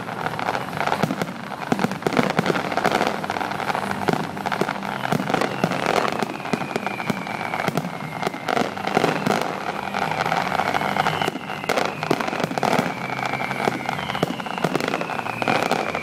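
Fireworks finale: a dense, unbroken barrage of shell bursts and bangs, with high whistles gliding downward several times in the second half.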